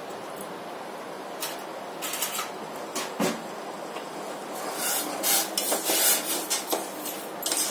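A spoon stirring granulated sugar into water in a stainless steel saucepan, scraping and clinking against the pan: the sugar is being dissolved into a thin syrup. A few separate light knocks come first, then from a little past halfway the scraping becomes a denser run of strokes.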